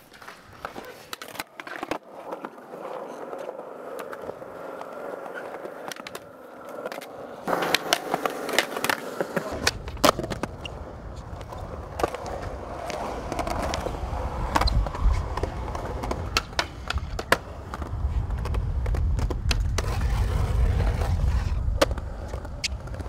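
Skateboard wheels rolling on smooth concrete, with sharp clacks of the board popping and landing on tricks. The low rolling rumble swells in the second half and is loudest near the end.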